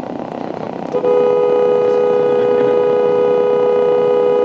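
Car horn blown about a second in and held down, a loud steady two-note blare.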